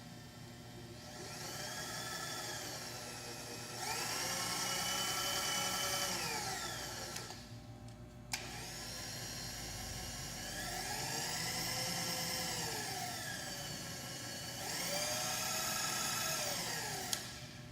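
Electric servo power-feed motor driving a milling machine's table lengthwise, whining as it ramps up to speed. It runs steadily, jumps to a higher rapid-traverse speed, then winds down and stops. This happens twice.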